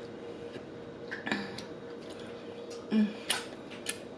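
Eating sounds: a few wet mouth clicks and smacks from chewing, with one brief louder mouth sound about three seconds in, over a faint steady hum.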